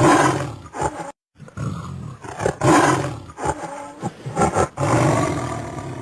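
Tiger roaring and growling in a series of rough, loud roars, with a short break about a second in.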